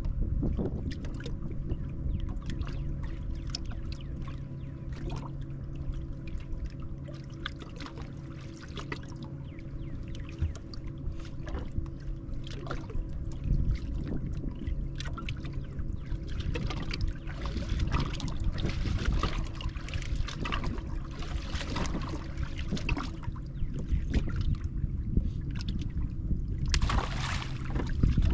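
Wind buffeting the microphone and water lapping and splashing against a bass boat's hull, over a steady low hum. A brief louder rush of noise comes near the end.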